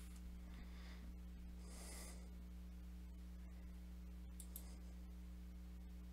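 Quiet room tone of a home voice recording: a steady low electrical hum, a few faint clicks, and a soft breath about two seconds in.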